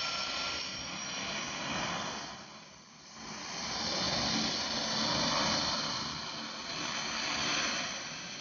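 Single-engine turboprop jump plane taxiing past: a steady turbine whine over a rushing propeller noise, dipping briefly and then growing louder about halfway through as the plane comes close.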